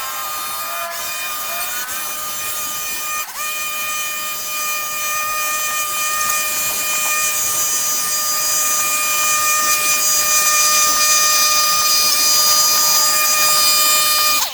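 Small engine of a handheld power tool running at a steady high speed, with a brief dip about three seconds in.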